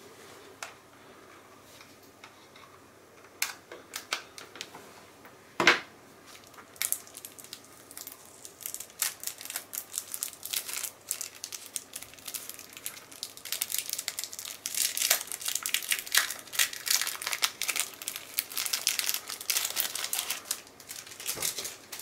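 Thin plastic bag crinkling as a small remote control is worked out of its wrapping, busy and dense from about seven seconds in until just before the end. Before that, a few light clicks and one sharp knock about six seconds in.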